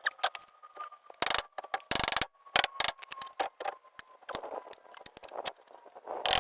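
Hand tools clicking and clinking against metal car parts in irregular sharp knocks, with two short runs of rapid clicking about one and two seconds in.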